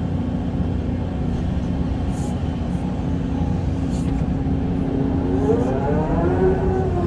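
Doosan 225 excavator running under work, its diesel engine a steady low drone. In the last couple of seconds a pitched whine rises and then falls again.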